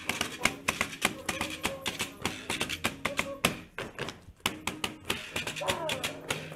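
Dancers' boots stamping on a paved street in quick, irregular sharp taps, with a violin playing held notes underneath.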